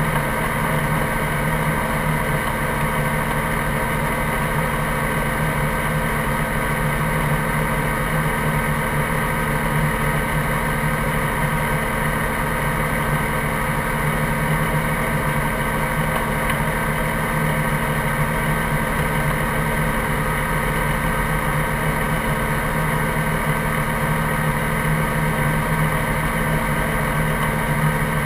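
Helicopter's engine and rotor running steadily on the ground, with a constant hum and whine and no change in pitch. It is heard close up, from a camera mounted on the fuselage.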